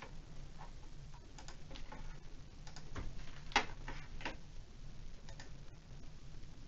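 Computer mouse clicking: scattered soft clicks, a cluster of louder ones about three to four seconds in, over a low steady hum.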